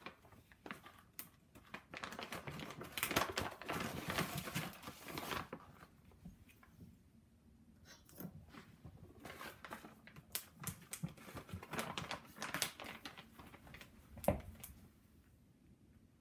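Rustling and crinkling of cage fleece and bedding, with scattered clicks, in two stretches while a guinea pig is handled in its cage. A single sharp thump comes near the end.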